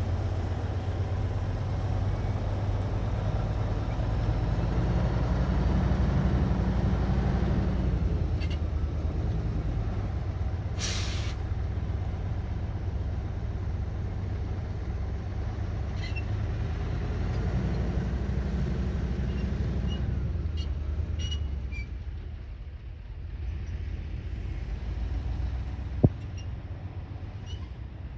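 Heavy construction machine's diesel engine running steadily under load, rising twice as it works harder and dropping off near the end. A short burst of air hiss, like an air brake releasing, comes about eleven seconds in, and a single sharp click sounds near the end.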